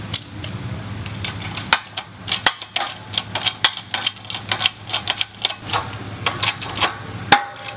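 Hydraulic bottle-jack shop press being pumped by hand: a run of irregular metallic clicks and ticks, several a second, as the ram presses a new bearing into an A/C compressor clutch pulley.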